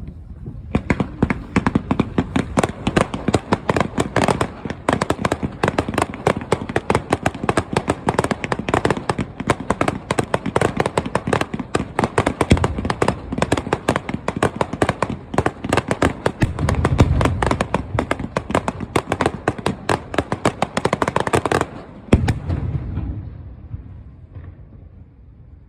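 Fireworks going off in a dense, rapid barrage of sharp bangs and crackles, many to the second, with a deeper boom swelling in after about seventeen seconds. After about twenty-two seconds it stops abruptly, leaving a fading low rumble.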